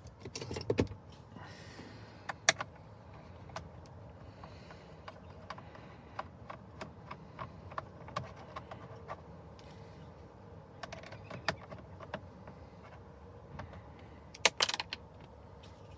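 Small clicks and light taps of a screwdriver and plastic parts as the Phillips screws are worked out of a steering-wheel roll connector, scattered irregularly, with a louder cluster of clicks about half a second in and again near the end.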